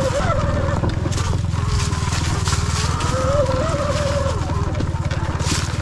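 Sur Ron electric dirt bike being ridden, its motor whine wavering up and down in pitch with speed over a steady rumble of wind on the microphone, with a few short knocks from the trail.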